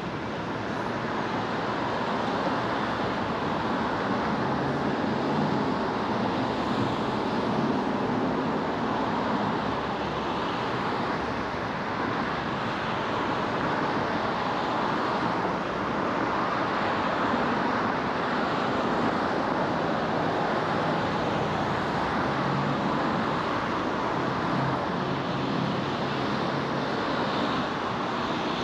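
Car driving: a steady rush of tyre and wind noise that holds an even level throughout.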